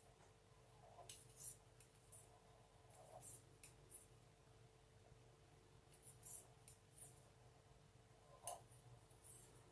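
Knitting needles faintly clicking and tapping together at irregular moments while a row of stitches is purled, the sharpest click about eight and a half seconds in.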